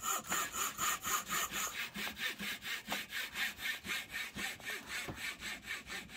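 Thin-bladed hand saw cutting a balsa block, in quick, even strokes about five a second.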